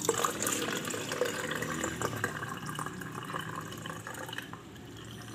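Syrup from a can of fruit being poured into a plastic pitcher, splashing and trickling steadily and easing off near the end as the can drains.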